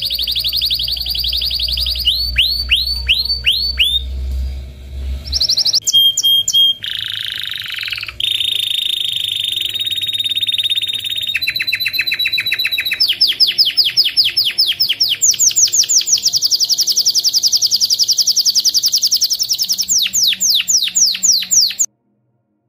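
Domestic canary singing a long song of fast trills and rolls, switching to a new trill every second or two, with a rapid run of high sweeping notes through the second half. A low hum lies under the first few seconds, and the song stops abruptly near the end.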